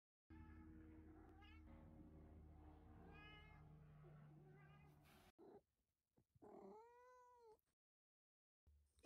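A black domestic cat meows three times while carrying a toy in its mouth, over a steady low hum. After a break comes one long, clear meow that rises and then falls in pitch.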